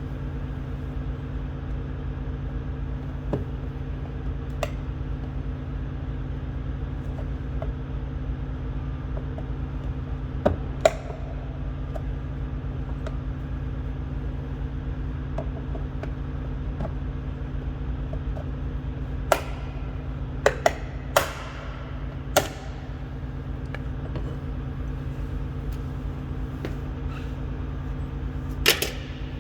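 Plastic door trim being pried off a truck's inner door with a trim tool: a few scattered sharp clicks and snaps, most of them in a cluster past the middle and one near the end. A steady low hum runs underneath.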